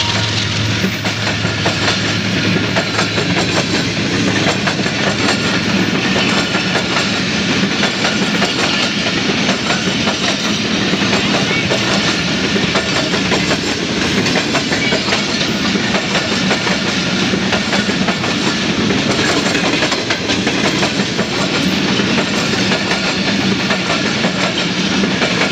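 Passenger coaches of a Pakistan Railways train rolling past close by, the wheels clattering steadily over the rail joints in a continuous run of clicks.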